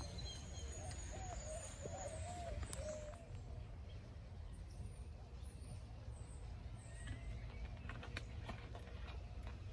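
A bird calling several times in the first three seconds, each call wavering up and down, over a steady low outdoor rumble. Later come a few light clicks from a plastic drink bottle being handled and capped.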